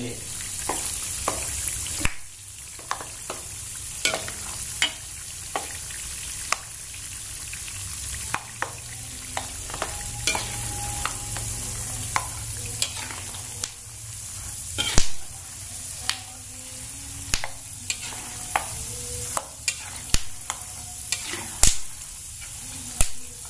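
Raw peanuts deep-frying, fully submerged in oil in a wok, with a steady sizzle. A metal spatula stirs them, giving frequent sharp clicks and scrapes against the wok.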